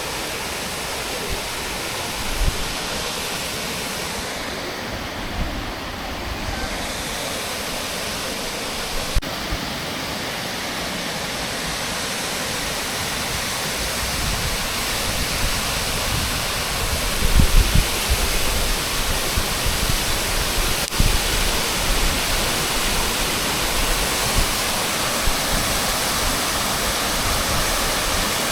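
Düden Waterfall's falling water rushing steadily, growing a little louder about halfway through, with a few brief low thumps.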